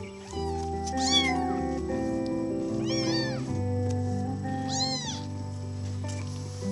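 Kitten meowing three times, about two seconds apart, each a short high call that rises and falls, over soft background music with long held notes.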